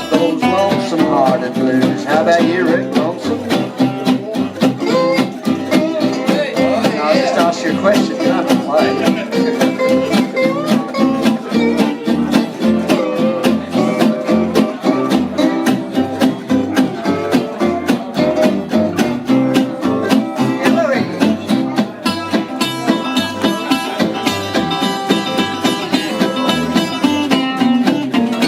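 A live band playing an instrumental stretch of a country-blues song: guitars and other plucked strings over a steady beat, with a bending lead line.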